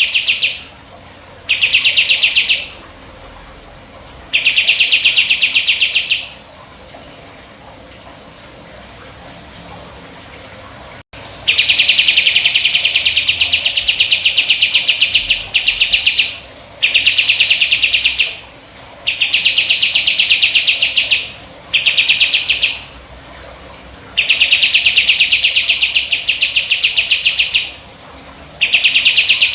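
A burung jenggot songbird singing its rapid-fire 'tembakan' song: loud, high, fast trills in bursts of one to four seconds, repeated over and over, with a pause of about five seconds in the first half.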